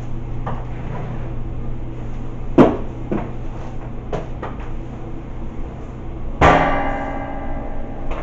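Flat mop with a metal handle knocking against the mop bucket and floor: several sharp knocks a few seconds in, then a louder clang with a short metallic ring near the end, over a steady low hum.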